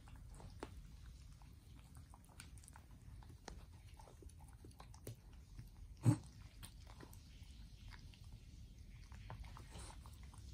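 Two Cavalier King Charles spaniels licking each other's faces: quiet wet licking and lip-smacking clicks. One short, louder thump comes about six seconds in.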